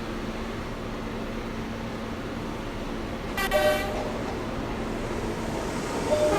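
An arriving R179 subway train sounds one short horn blast about halfway through, over a steady station rumble. A wheel squeal begins just at the end.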